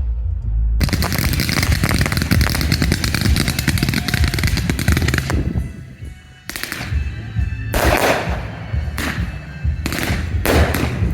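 Professional fireworks display with music playing: a dense run of rapid crackling bangs, a brief lull about six seconds in, then further bursts of bangs.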